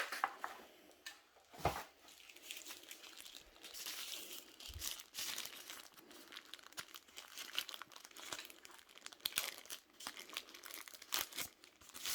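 Packaging wrapping crinkling and rustling in irregular bursts with scattered sharp crackles, as a keyboard's detachable USB-C cable is unwrapped and pulled free.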